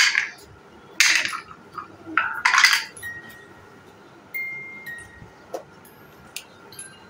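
Large plastic building blocks clattering as they are handled and pressed together: three louder rattling bursts in the first three seconds, then a few light clicks.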